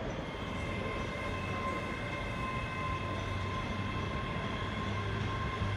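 ScotRail Class 385 electric multiple unit pulling out of the platform, its traction equipment giving a steady high whine over a low rumble from the moving train.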